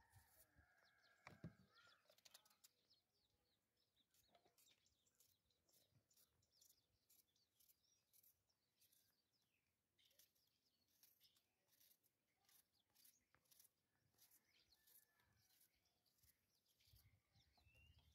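Near silence: faint outdoor ambience with faint bird chirps and scattered light clicks.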